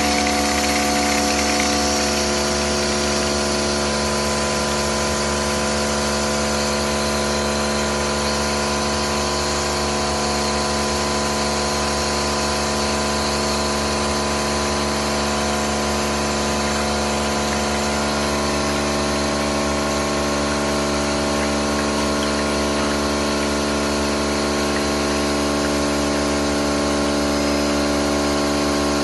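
Electric pressure-washer pump running steadily, a hum with several steady tones under the hiss of its water jet spraying an air-conditioner coil.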